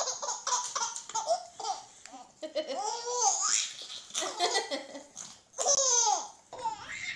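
A baby laughing hard in a string of belly-laugh bouts, each a run of high, wavering giggles with short breaks between them.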